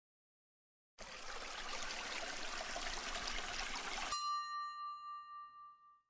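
Logo sound effect: about a second in, a rush of running, splashing water starts. Near the four-second mark it cuts off into a bright chime that rings on and fades out.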